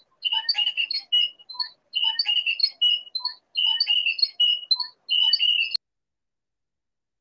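Video-call audio breaking up into robotic, chirping fragments of a voice: the poor internet connection strips the speech down to choppy warbling tones. It cuts off abruptly with a click about six seconds in as the connection drops.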